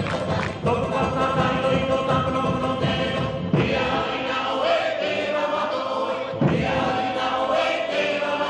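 Tahitian group chant: a chorus of many voices singing together in held notes, the phrases breaking off briefly about every three seconds.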